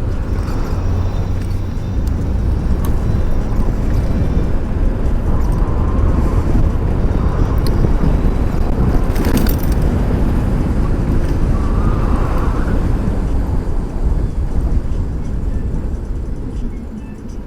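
Wind buffeting a helmet-mounted microphone on a moving e-bike: a loud, steady low rumble mixed with road and traffic noise. It eases off near the end.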